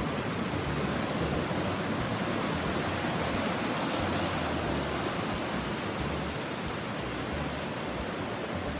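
Steady surf: small waves breaking and washing up a sandy beach, foaming around large round boulders, swelling slightly about halfway through.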